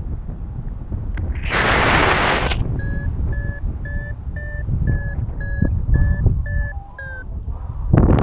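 Paragliding variometer beeping about twice a second, its climb tone signalling lift, over steady wind rumble on the microphone. A short burst of hiss comes before the beeps start, and the last beeps drop in pitch as the climb weakens.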